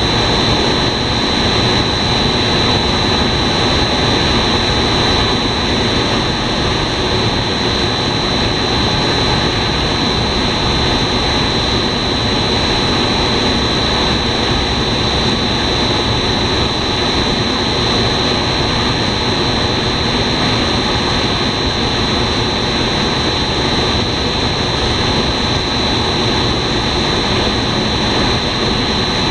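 Twin-screw food extruders running on a fried-snack production line, pushing out dough strands: a constant machine drone with a steady high whine over it.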